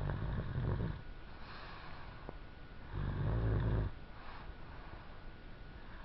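A three-year-old child snoring in her sleep: two loud snores about three seconds apart, each lasting just under a second, with quieter breathing between.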